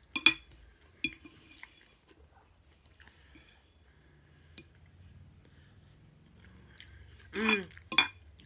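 Eating sounds: a fork clicking and scraping on a plate, with chewing in between. The loudest click comes just after the start. A short voiced sound from the eater and another fork click come near the end.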